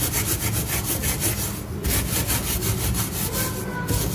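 A steel wool scourer scrubbing a gas stove's steel burner ring in rapid, rhythmic back-and-forth strokes, scouring off black burnt-on grime that a sprayed hob cleaner has loosened.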